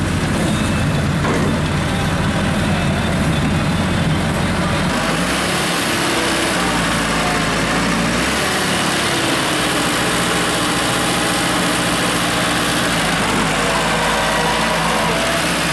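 Diesel engines of a Massey Ferguson 375 tractor and an excavator running steadily. Their tone shifts about five and eight seconds in.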